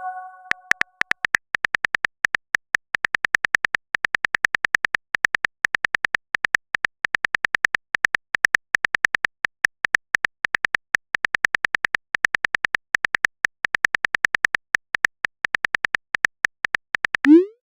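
Phone keyboard typing sound effect: a rapid run of short tap clicks, about four to five a second with brief pauses. Near the end comes a quick rising pop, the chat app's message-sent sound.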